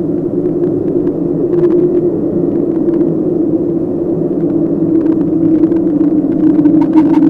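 Low, steady droning rumble of a dark horror ambience, with faint scattered crackles that grow busier and a higher tone that comes in near the end.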